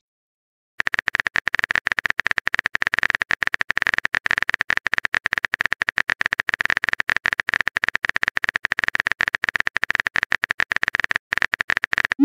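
Typing sound effect of a texting-story app: a rapid, continuous run of keyboard-like clicks. It starts about a second in and breaks off briefly near the end.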